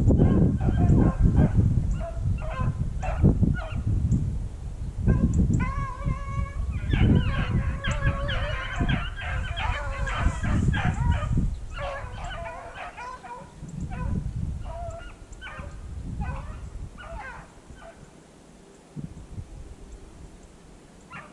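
A pack of rabbit hounds baying on a rabbit's trail, many voices overlapping, thickest in the middle and thinning toward the end. Wind rumbles on the microphone through the first half.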